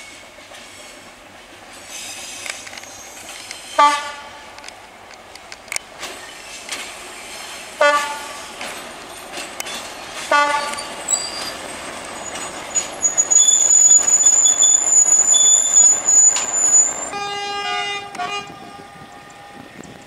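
Diesel freight trains passing: three short horn toots about 4, 8 and 10 seconds in, then a loud, high-pitched steel wheel squeal lasting several seconds, and near the end a longer, broken horn blast.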